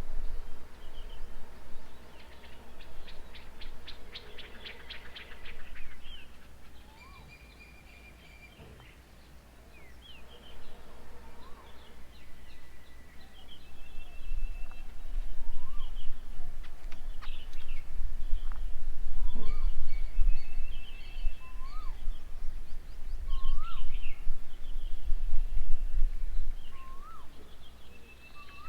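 Several birds calling and chirping, with a quick rattling series of notes early on. From about a third of the way in, one bird repeats a short upswept whistle every couple of seconds, each a little higher than the last. Bouts of low rumble come and go underneath.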